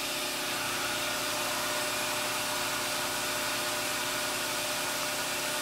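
Steady background hiss with a faint, even hum, like a fan or air handler running, unchanging throughout; no sound from the engine parts themselves.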